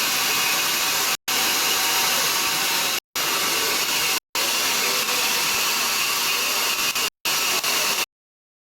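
Steady, loud hiss of steam escaping from a steam locomotive. It is cut off abruptly a few times for a split second and stops dead about eight seconds in.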